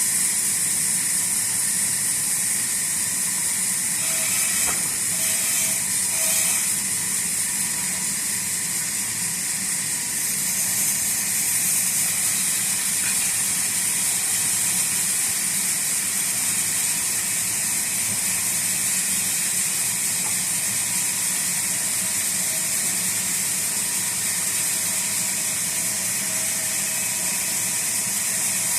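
Sawmill running steadily: a constant high hiss with a steady hum and whine underneath.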